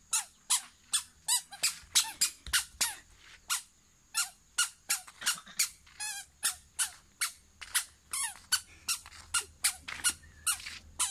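Toddler's squeaky shoes squeaking with each step as he walks, a short high squeak about two to three times a second in a walking rhythm.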